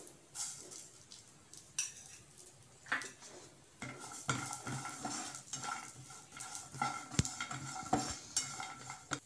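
Slotted spatula stirring almonds, cashews and white sesame seeds around a nonstick frying pan: scraping strokes with the nuts clattering against the pan. There are a few separate strokes at first, then steadier stirring from about four seconds in.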